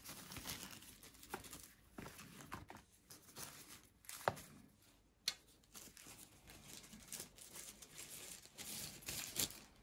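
Tissue paper and plastic packaging rustling and crinkling as phone cases are handled and unwrapped, with a couple of sharp clicks about four and five seconds in.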